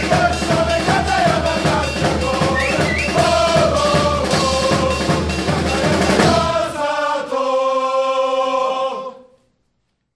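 Football supporters' chant sung by a group over a steady bass and snare drum beat. About seven seconds in the drums stop and a final held note rings on, fading out about two seconds later.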